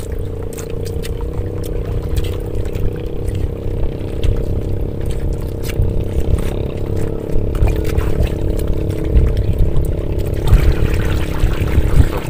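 Sea water lapping and trickling around a small outrigger boat, over a steady engine hum.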